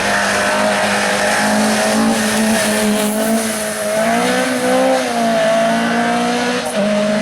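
Race car engine at high revs, held loud and steady. Its pitch sags and recovers about four seconds in, then briefly drops near the end, as with lifting off the throttle or a gear change.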